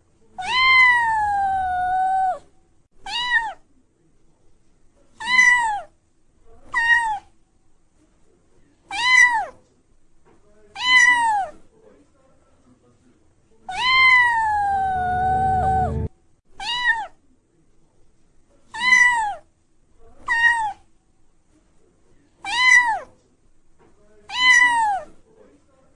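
A kitten meowing repeatedly in high calls, one long drawn-out meow followed by five short ones, and then the same run again.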